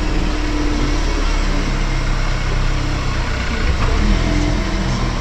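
A car's engine running steadily with tyre and body noise as it drives along a rough dirt track.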